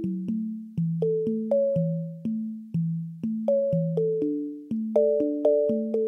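Instrumental keyboard music: an electric-piano-like keyboard playing a simple melody over lower bass notes, about two notes a second, each note struck and fading.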